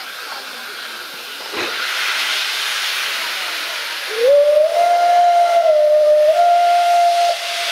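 Steam locomotive 354.1217 hissing steam, then sounding its steam whistle in one long blast of about three seconds. The note rises quickly at the start and dips slightly in pitch midway.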